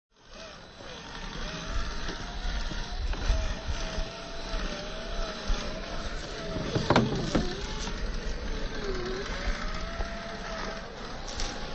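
Electric motor and gear drivetrain of a 1/10-scale Axial SCX10 III Gladiator RC crawler (Reedy 550 motor) whining as it crawls, the pitch rising and falling with the throttle. About seven seconds in, the pitch dips sharply and climbs again amid a brief clatter.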